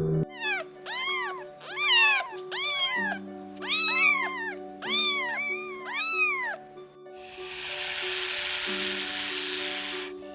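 Domestic cat meowing over and over in short rising-and-falling calls, followed about seven seconds in by a long, loud hiss lasting about three seconds.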